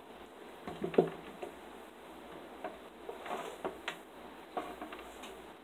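Handling noise of a Surface Pro laptop and headphone cable on a wooden desk: scattered clicks and knocks as the laptop is tilted and the headphone plug is pushed into its side. One sharper knock about a second in is the loudest.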